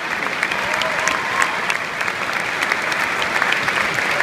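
Large concert-hall audience applauding steadily, a dense wash of many hands clapping.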